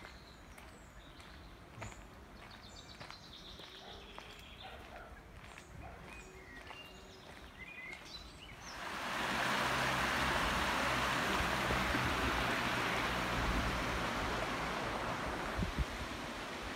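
Birds chirping in a park over light footsteps. A little past halfway, a loud steady rushing noise sets in and drowns them out, like flowing water or wind.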